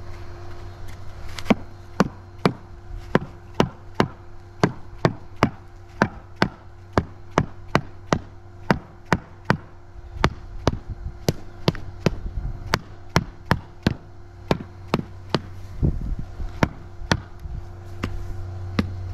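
Red rubber mallet repeatedly tapping a marble paver down into its bed: a steady run of sharp knocks, about two a second, that stops shortly before the end.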